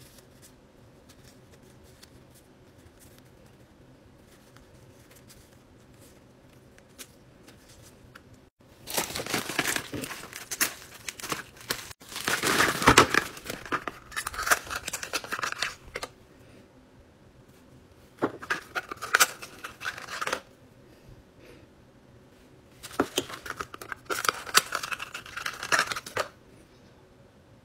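Packaging being unwrapped: paper and plastic wrapping rustling, crinkling and tearing in three bursts of a few seconds each over the second half, after a quiet start with only faint handling ticks.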